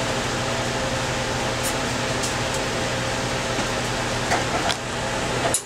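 Steady hum and hiss of machine fans, with a few light clicks and knocks from about a second and a half in and near the end.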